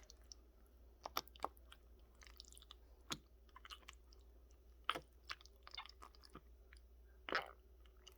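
Sticky squelching and small wet pops from slime being pressed into the bubbles of a silicone pop-it toy, as a scattered handful of short clicks.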